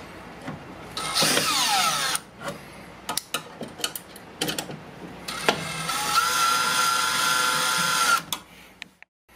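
Cordless brushless drill/driver running screws on a stainless-steel electronics box. There is a short run about a second in whose pitch falls, light clicks of the bit and handling, then a steady run of nearly three seconds that stops suddenly.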